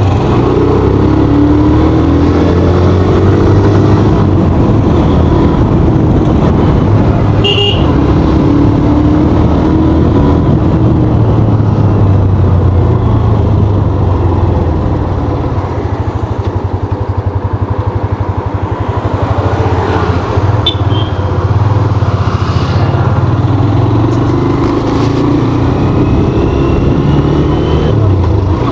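Hero Xtreme 125R's air-cooled single-cylinder engine and exhaust under way while riding, its pitch rising and falling with the throttle and speed. About halfway through the engine eases off and goes quieter for a few seconds, then pulls again.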